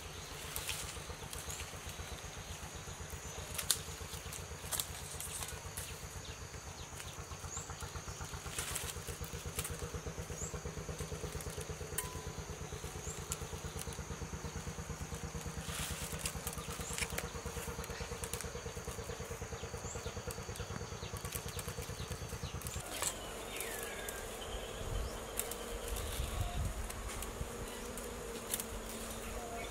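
Dry wild-vine strands clicking and rustling as they are woven into a basket, with scattered sharp ticks. A steady low droning hum lies under them and changes about 23 seconds in.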